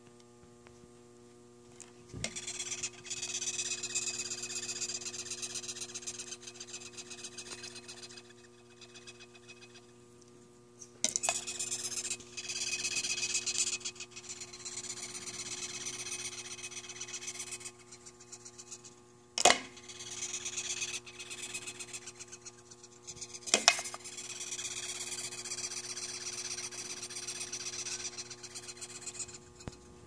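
Red velvet ant (cow killer) squeaking by stridulation, a high raspy chirring that comes in long bouts of several seconds with two short pauses, set off as it is prodded with a pen. A few sharp taps of the pen on the plastic cup are heard among the bouts.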